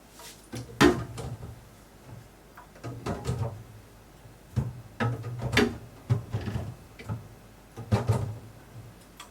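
Plastic containers and refrigerator drawers knocking and clattering as items are set down and put away in a fridge, in clusters every second or two, the loudest about a second in.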